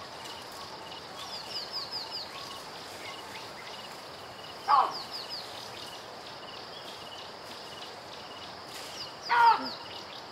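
Forest ambience: a steady high insect hum with repeated short chirps, and two loud animal calls, each falling in pitch, about five seconds apart, near the middle and near the end. Each loud call is led by a quick run of high, falling chirps.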